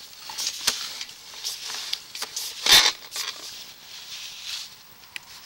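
Sewer inspection camera and its push cable being drawn back out of the drain line: irregular scraping and clicking, with one louder knock a little under three seconds in.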